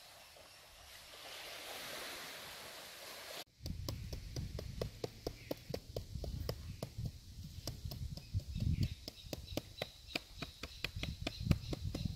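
Soft hiss of gentle surf at the shore, cut off abruptly about three and a half seconds in. It is replaced by a rapid, irregular run of sharp clicks over a muffled low rumble, which is the loudest part.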